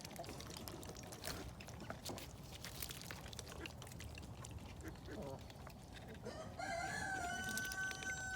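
A cockerel crowing once near the end, one drawn-out call of about two seconds.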